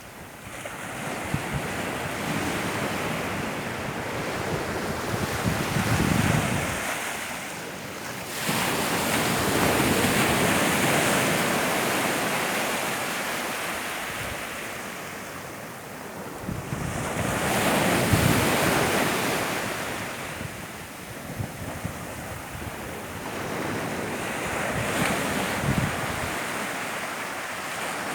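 Mediterranean surf breaking on the shore, a steady wash of noise that swells and ebbs as waves roll in every several seconds, with wind on the microphone.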